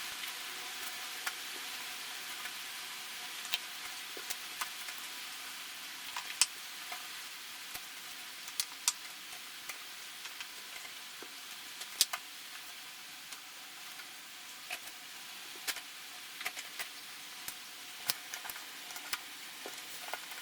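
Irregular sharp clicks and taps, some much louder than others, over a steady hiss.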